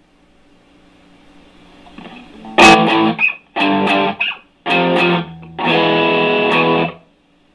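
Electric guitar played through a Nobels Sound Studio 1 preamp on its drive setting: a faint hiss rises, then four overdriven chords are struck, the first hit hard. The last chord rings about a second and a half and is cut off sharply.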